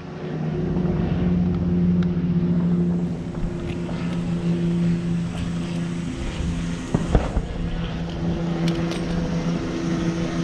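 An engine running at a steady speed, with a single knock about seven seconds in.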